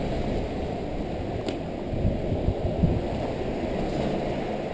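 Steady muffled rumble of background noise on a GoPro Hero 2's microphone, with a few soft footstep thuds on rubble about two seconds in.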